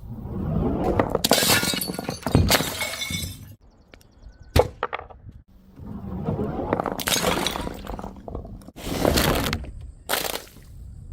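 Glass bottles smashing, several breaks one after another, each a sharp crack followed by shards clattering and tinkling.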